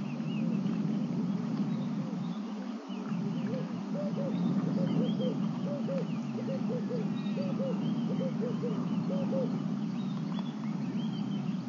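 Wild animal and bird calls: a series of short, arched low notes about two a second from a few seconds in until near the end, with small birds chirping higher up over a steady low hum.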